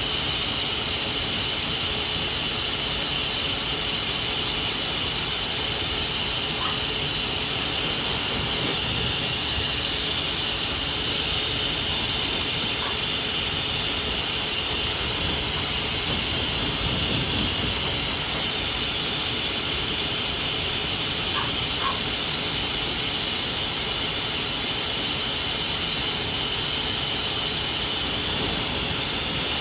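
Steady rushing hiss of a dog grooming blow dryer running continuously, blowing through the coat.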